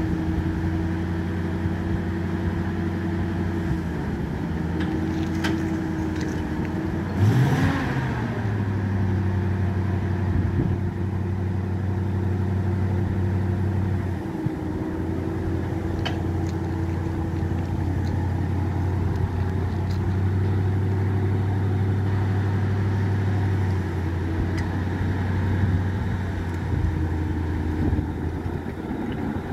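Rebuilt 1942 Universal Carrier Mk I*'s Ford flathead V8 engine running steadily, with a brief rev about seven seconds in, as the tracked carrier creeps forward under its own power.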